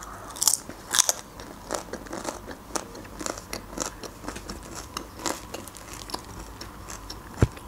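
Close-miked chewing of lahmacun, a thin Turkish flatbread topped with minced meat, with many small irregular crunches and mouth clicks. The flatbread is torn by hand near the end, and there is one short, louder thump just before the end.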